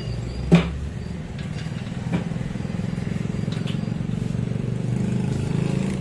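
A small engine running steadily, with a sharp knock about half a second in and a couple of fainter clicks later.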